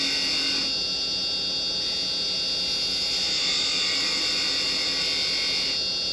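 Wood lathe running with a steady hum while a carbide chisel cuts a taper into a small spindle-turned finial, a steady hiss that eases off briefly about a second in and again near the end.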